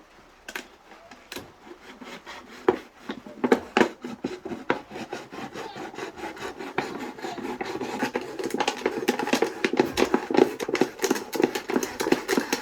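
A knife sawing through the wall of a clear plastic 2-liter bottle to cut its top off. The back-and-forth strokes are sparse at first, then come quicker and louder through the second half.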